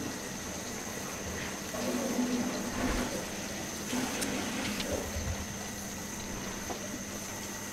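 Fish gravy simmering in a pan while a slotted spatula turns fried koi (climbing perch) in it, with two short stretches of soft sloshing and scraping.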